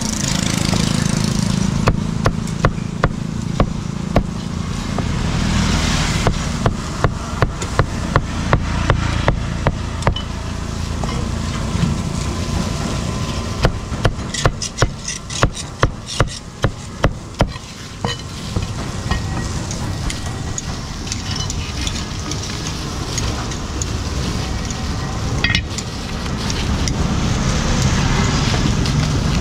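Heavy steel meat cleaver chopping grilled pork on a thick wooden chopping block: sharp knocks, about two to three a second, in three bursts of several strokes each. A steady low background noise runs underneath.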